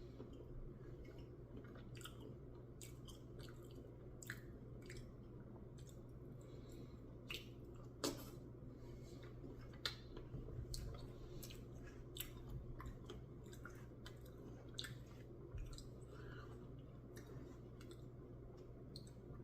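Person eating a soft, melting ice-cream Blizzard with Reese's peanut butter cup chunks: faint chewing and wet mouth clicks. Scattered sharp clicks, the loudest about 8 and 10 seconds in, sound over a steady low hum.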